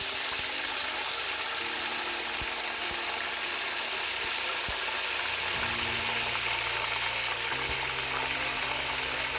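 Curry leaves, kalonji (nigella seeds), mustard, cumin and fenugreek seeds sizzling in a pot of hot oil, a steady even hiss of a tempering (tadka).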